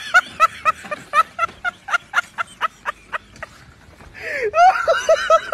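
A person laughing hard in a long run of short, high-pitched 'ha' bursts, about four a second, dying down about three seconds in and starting up again near the end.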